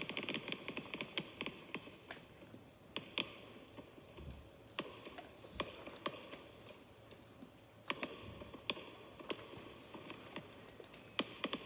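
A recording of fireworks without rockets, played quietly: scattered sharp pops and crackles at irregular intervals over a continuous fizzing crackle.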